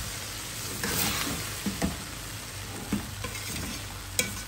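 Boiled rice sizzling in hot cumin-tempered oil in an aluminium pot while a metal spatula gently turns it, scraping the rice and the pot, with a sharp metal click about four seconds in.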